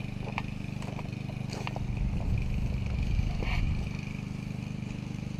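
Small engine of a garden tiller running steadily, getting louder for a couple of seconds in the middle, with a few light clicks and clatter.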